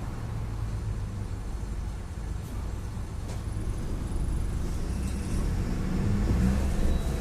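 Mercedes-Benz OF-1721 BlueTec 5 bus's diesel engine running, growing louder from about four seconds in as it picks up revs.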